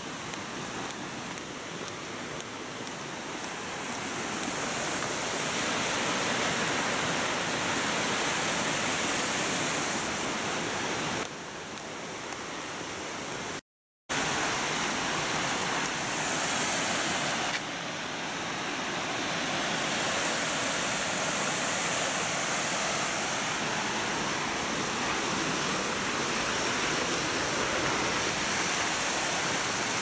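Steady rush of falling and flowing water from the Nunobiki Falls and their mountain stream, growing louder a few seconds in. The sound cuts out completely for a moment about 14 seconds in.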